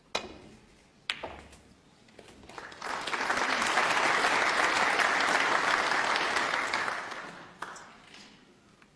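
A snooker cue strikes the cue ball with a sharp click, and a second sharp click of ball on ball follows about a second later. Then the audience applauds a potted red, swelling for a few seconds and fading out.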